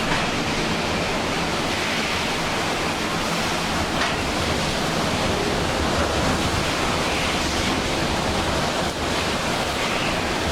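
Hurricane wind blowing steadily with rain, a loud, even rush of noise that neither builds nor breaks, heard from inside a house whose window has blown out.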